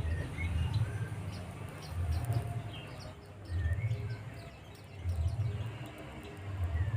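White-eyes giving many short, high chirps: a caged decoy white-eye calling to wild birds. Underneath, a low rumble swells and fades about every second and a half.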